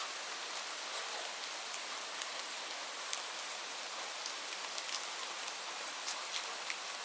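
Steady rain falling on leaves: an even hiss with many separate drops pattering on the foliage.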